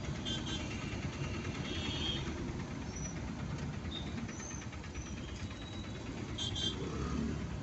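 Traffic heard from inside a car in slow, stop-and-go city traffic: a steady low rumble of idling engines, with a few short high-pitched sounds at the start and about two and six seconds in.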